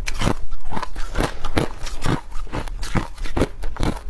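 Ice being chewed and crunched between the teeth, picked up by a clip-on microphone close to the mouth: a quick, irregular run of sharp crunches, about three or four a second.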